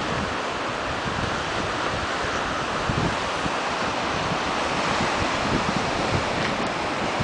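Ocean surf washing steadily onto the beach and rocks below, with wind gusting on the microphone in low, irregular buffets.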